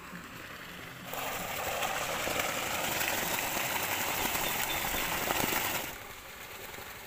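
Water pouring from a stainless-steel sheet-waterfall spout and splashing into a swimming pool: a steady rushing splash that starts abruptly about a second in and cuts off abruptly near the end, with faint outdoor ambience before and after.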